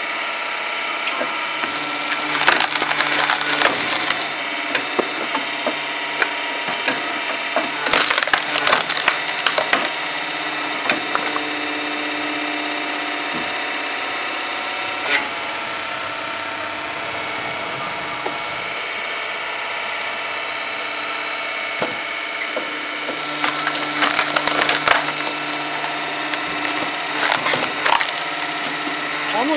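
Homemade firewood processing machine running steadily, with loud bursts of wood cracking and splintering as logs are split: once a few seconds in, again a little later, and again through the last several seconds.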